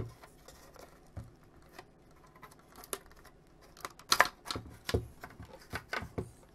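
Scattered clicks and knocks of a circuit board and its metal chassis being handled and worked loose from a plastic instrument case, busiest about four to five seconds in.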